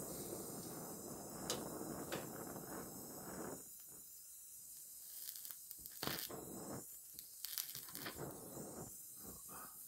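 Electric arc welding on a car's sheet-metal trunk lid edge: a continuous crackling sizzle for about the first three and a half seconds, then a run of short, separate crackles.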